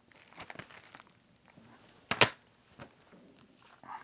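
Shrink-wrapped plastic DVD cases being handled and shuffled: crinkling plastic wrap and light clicks of the cases, with one louder clack about two seconds in.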